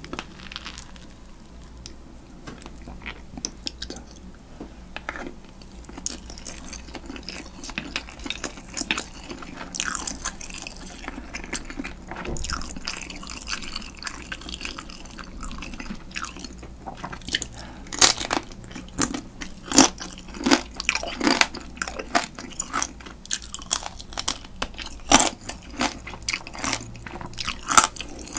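Close-miked chewing and crunching of spicy marinated raw crab (yangnyeom-gejang), shells and all. The crunches become sharper and louder in the second half.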